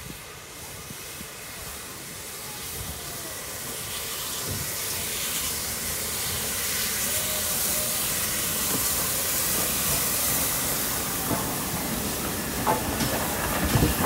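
The Flying Scotsman, an LNER A3 Pacific steam locomotive, drawing slowly in with its steam hissing, the hiss growing steadily louder as it comes close. A few knocks sound near the end.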